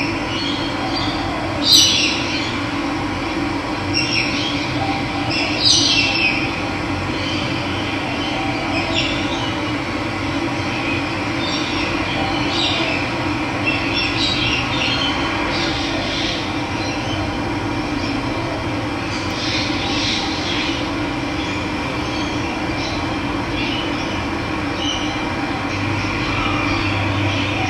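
Running water rushing steadily, with birds calling in short chirps every few seconds over it.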